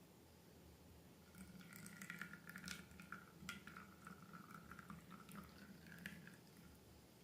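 Faint, wet squishing and crackling of slime being handled, with small sticky clicks from about a second in that die away near the end.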